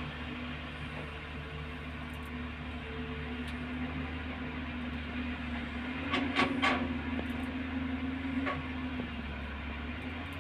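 JCB tracked excavator's diesel engine running steadily under load, with a burst of clattering about six seconds in as a bucketful of sand and stones is dumped into the steel body of a tipper truck, and a smaller knock shortly after.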